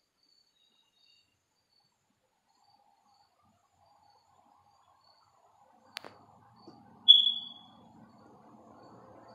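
Faint, intermittent high chirping, then a sharp click about six seconds in and, a second later, a single loud high-pitched chirp that fades within half a second, followed by a low rumble slowly growing louder.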